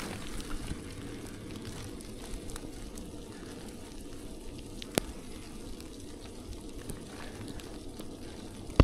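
Steady fine crackling hiss of wet sleet and slush, with a single sharp click about five seconds in and a sharp knock at the very end.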